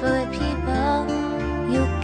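Background music: a melodic song track playing steadily.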